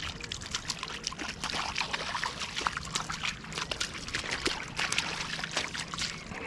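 Shallow river water trickling and splashing, with many small irregular splashes as a small brown trout is handled in the water at the river's edge.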